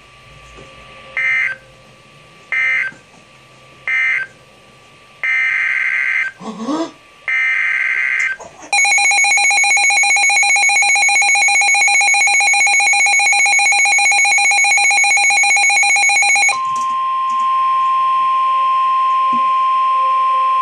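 NOAA Weather Radio alert on a Midland HH54VP2 weather radio. A few screechy digital SAME data bursts come first, then a loud, rapidly pulsing electronic alarm for about eight seconds, then a steady single-pitch tone: the 1050 Hz warning alarm tone that announces a severe thunderstorm warning.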